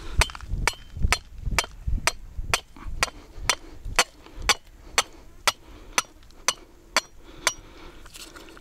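A flat rock striking a ring-topped metal stake to drive it into stony ground, about two hard knocks a second, some with a short metallic ring. The knocks stop shortly before the end.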